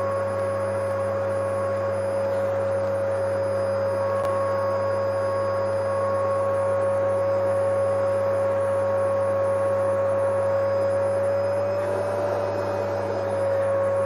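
Vacuum cleaner running steadily: an even, high motor whine over a constant rush of air, with its pitch wavering slightly near the end.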